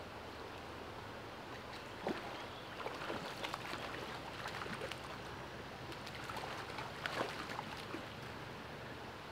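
Shallow stream running steadily. From about two seconds in there are irregular splashes as a hooked brown trout thrashes at the surface and is scooped into a landing net; the sharpest splashes come about two and seven seconds in.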